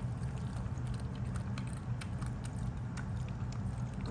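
A Yorkshire terrier lapping water from a pet water fountain, with quick irregular wet clicks over the fountain pump's steady low hum.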